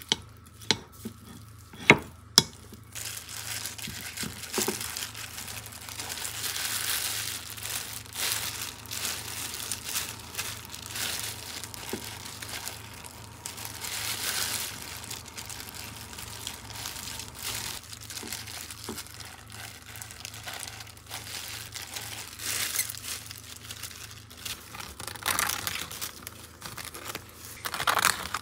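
A few sharp clicks of a wooden spoon knocking a ceramic bowl while mixing. Then, from about three seconds in, a long stretch of crinkling from a thin disposable plastic glove as the gloved hand squeezes and presses rice into balls in the bowl, swelling and fading with each squeeze.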